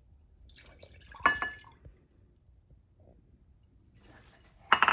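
Milk being poured into a mixing bowl of beaten eggs, with hard clinks of the cup against the bowl, a light one about a second in and louder ones near the end.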